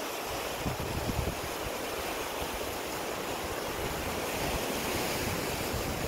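Loud sea surf breaking and washing over black volcanic rocks: a continuous rushing wash that swells a little toward the end, with wind buffeting the microphone in low rumbles.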